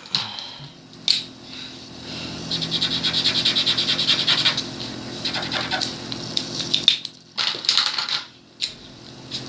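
Colouring pen or crayon scribbling back and forth on paper in runs of quick strokes, filling in a drawing.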